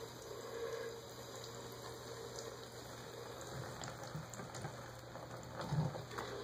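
A thin stream of water trickling from a bathtub spout and pattering into the tub, with a soft bump near the end.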